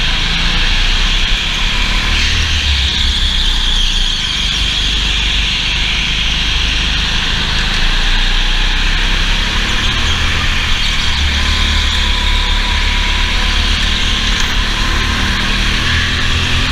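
Go-kart engine running steadily at racing speed, heard from a camera mounted on the kart, with wind and vibration noise on the microphone.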